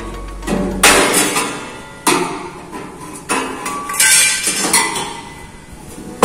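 Hammer blows on stainless steel sheet, about six irregular strikes, each ringing briefly and fading, as a hole is knocked through the metal.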